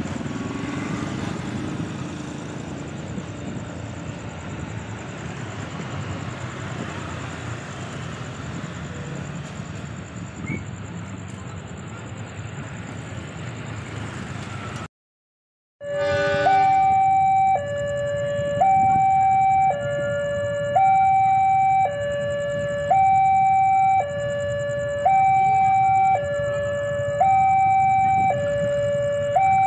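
A steady noisy background, then, after a brief break, an electronic two-tone warning signal. It switches between a high and a low tone about once a second and repeats evenly.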